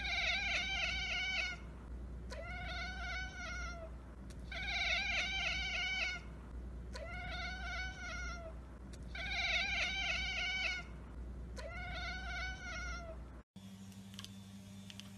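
Domestic cat chattering: six drawn-out, rapidly stuttering calls, about a second and a half each, alternating louder and softer. This is the sound a cat makes when it watches a bird or insect it cannot reach. Near the end the calls stop, leaving a quieter steady hum.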